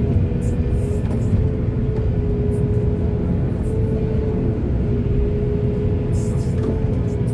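Excavator's diesel engine running steadily under work, a continuous low rumble with a steady whine over it and short bursts of hiss.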